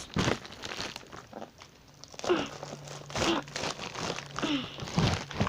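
Packaging crinkling and rustling in irregular bursts as it is handled, busier from about two seconds in.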